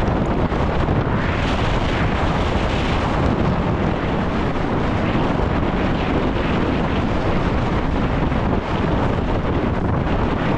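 Wind rushing over a helmet-mounted camera's microphone at speed on a downhill mountain bike run, mixed with tyres on dry dirt and rock and the bike's rattle and clatter.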